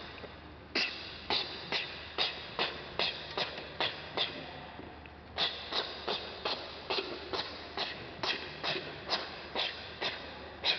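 A steady run of sharp percussive strikes, about two and a half a second, broken by a pause of about a second near the middle.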